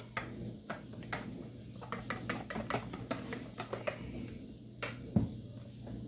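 Wire whisk clicking and scraping against a mixing bowl as it beats a loose flour-and-water batter, in quick irregular strokes. A single dull thump a little after five seconds is the loudest sound.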